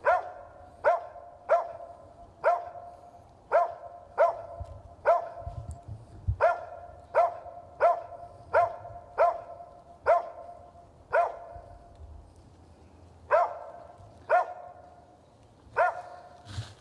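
Kemmer Cur squirrel dog tree-barking at a treed squirrel: a steady string of loud, pitched barks, about one every two-thirds of a second, with a short pause near the end before the barking picks up again.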